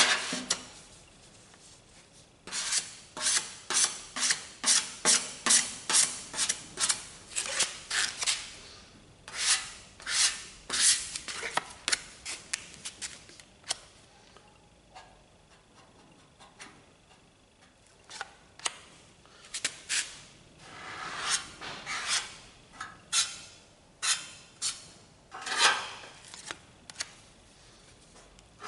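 Filler spreader scraping across a bare-metal car fender, laying on quick-drying body filler in a couple of layers with repeated short strokes. The strokes come in fast runs, with a quieter stretch about halfway.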